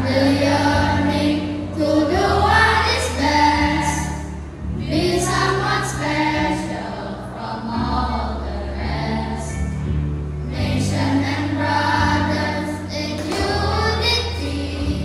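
A group of children singing a song together as a choir, over instrumental accompaniment with sustained bass notes.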